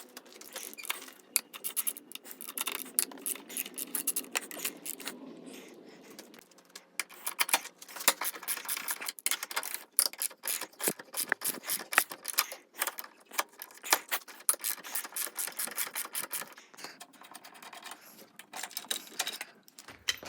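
Metal hand tools working under a car: runs of rapid ratchet-like clicking mixed with metal clinks, busiest in the second half.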